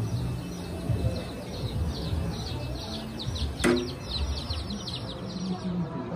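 Many small birds chirping in quick, high, falling notes, stopping shortly before the end. A single sharp click about midway, over a low background hum.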